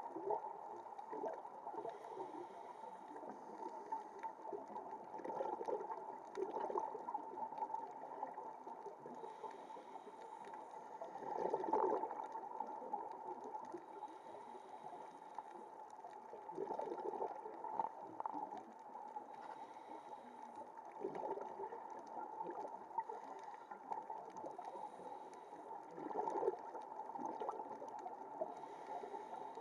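Muffled underwater sound through the camera housing: a scuba diver's regulator breathing, with a bubbly gurgling exhalation swelling up about every five seconds over a steady water hiss.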